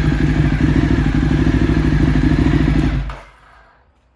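Ducati 848 Streetfighter's V-twin engine idling steadily, then shut off about three seconds in, the sound dying away quickly.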